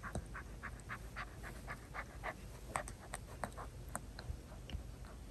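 A puppy gnawing on a plastic chew-toy bone: a quick run of short clicks and scrapes from its teeth on the toy, about three or four a second.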